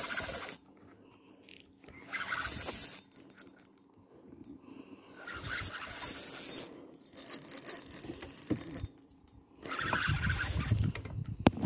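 Spinning fishing reel being cranked, its gears and line winding in three separate spells with pauses between.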